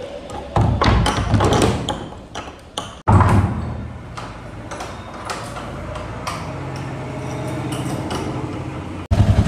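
Clicks and knocks of a door being handled and latched, in short edited pieces. A low steady hum runs under the second half.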